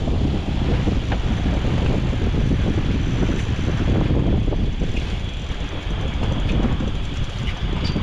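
Wind buffeting the microphone over the boat's twin outboard motors running while trolling, a loud rough rumble that swells and dips.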